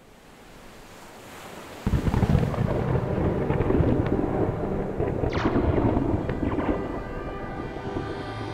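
A soft rush of noise swells, then about two seconds in breaks suddenly into a loud, dense, rumbling roar with crackles through it. Held musical tones fade in under the rumble near the end.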